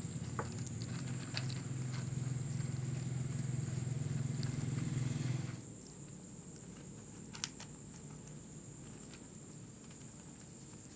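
Kitten eating dry kibble, with scattered small crisp crunches and clicks and one sharper click about seven seconds in. A low steady hum runs under the first half and stops abruptly about five and a half seconds in.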